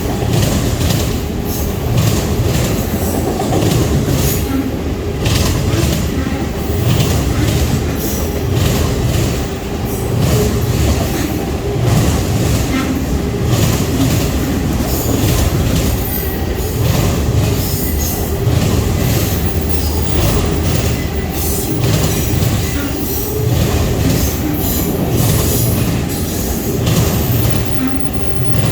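A train's cars rolling past, their wheels clattering over the rail joints in a repeating low beat about once a second over a steady rumble.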